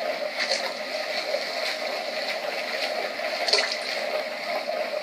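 Water sloshing and splashing, a steady wash with short louder splashes every second or so, the loudest about three and a half seconds in.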